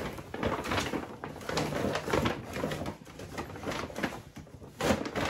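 Shopping bag rustling and crinkling as it is opened and rummaged through, with products being handled, in irregular bursts.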